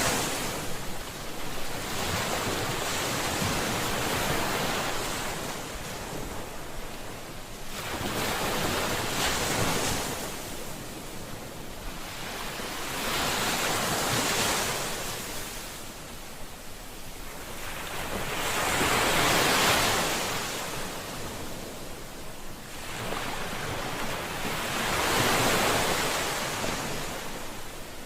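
Ocean waves breaking on a shore, each surge swelling to a hiss and washing back, about one every five to six seconds.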